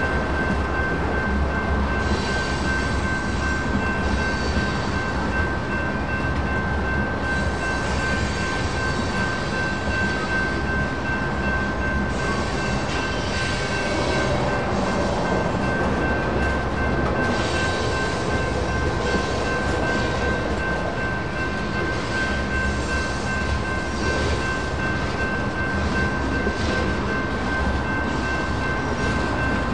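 Freight cars of a BNSF manifest train rolling steadily past, with a constant rumble and wheel clatter on the rails. A railroad crossing's electronic bell rings steadily throughout.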